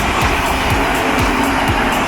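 Japanese level-crossing warning bell clanging in an even rhythm about twice a second, over the steady running noise of a passing Odakyu Odawara Line electric train.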